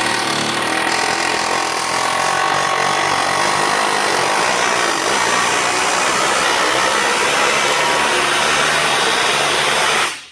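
Pneumatic air hammer (air chisel) hammering in a continuous loud rattle, driving down and setting a ball-joint rivet in a steel control arm; it stops abruptly about ten seconds in.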